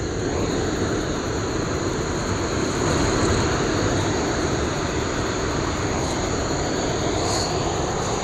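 Steady rush of water pouring over a rocky dam, an even noise with no breaks, with faint steady high tones above it.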